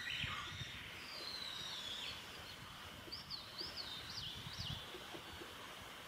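Small songbirds singing: thin, high whistled notes, a falling slur about a second in, then a quick run of rising-and-falling notes from about three to five seconds in, over a steady outdoor hiss.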